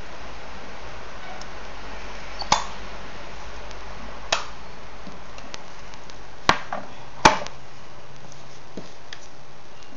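Four sharp metallic clicks and knocks as a homemade electric igniter's metal tin box, with a toggle switch on its lid, is handled: the switch flicked and the tin knocked down on a table. The last two clicks, close together, are the loudest, over a steady hiss.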